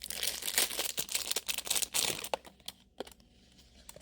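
Packaging crinkling and rustling as it is handled, dense for about the first two seconds, then thinning to a few scattered light clicks and rustles.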